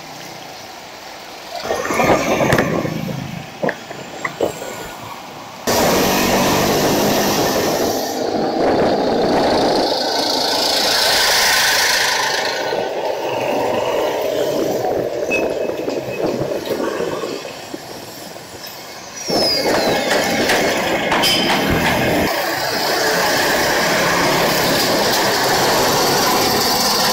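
Street traffic heard from a moving bicycle: engines of passing trucks, cars and motorcycles over a steady rush of road and wind noise, jumping abruptly in level a couple of times.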